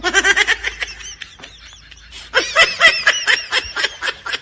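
A person laughing in two bursts of quick, high-pitched 'ha-ha' pulses, the second starting about two seconds in.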